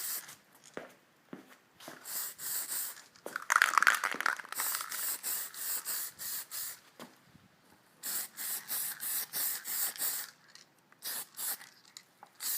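Aerosol spray-paint can of orange tint hissing in quick short bursts, about three or four a second, in runs of a few seconds with brief pauses between, as a coat is misted onto a plastic turn signal lens. About four seconds in, one stretch of spray sounds louder and lower.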